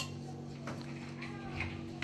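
A steady low hum with a few short, faint voice sounds in the background.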